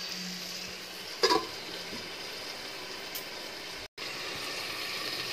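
Chicken pieces frying on a low flame in an iron kadai, a soft steady sizzle, with a single ringing metal clank about a second in.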